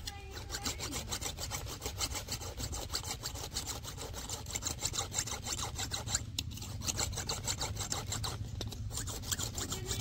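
A thin metal blade being sharpened on a rough stone: rapid, repeated scraping strokes of steel against rock, pausing briefly twice.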